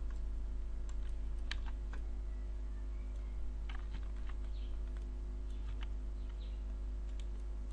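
Computer keyboard keys and mouse buttons clicking now and then at an irregular pace, over a steady low electrical hum.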